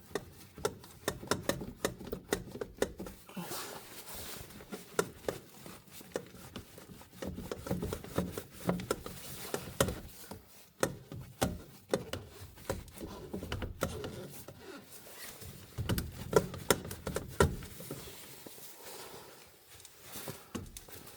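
Irregular clicks, taps and rubbing of plastic pipe and fittings being handled and fitted together: PVC furnace vent pipe being assembled with glue.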